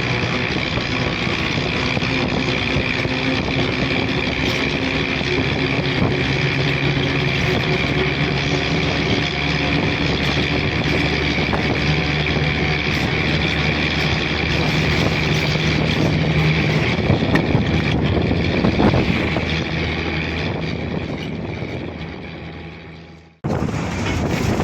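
An engine running steadily with a constant hum, fading away over the last few seconds before an abrupt cut.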